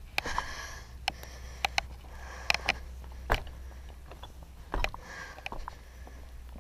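Footsteps crunching and clicking on loose lava rock rubble, irregular sharp cracks every half second to a second, with soft breathing between them.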